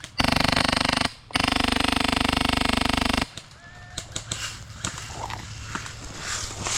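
Airsoft electric rifle firing two full-auto bursts close by, the gearbox buzzing with a very fast rattle of shots: one burst just under a second long, then after a brief pause a second of about two seconds. Faint scattered clicks and outdoor sound follow once the firing stops.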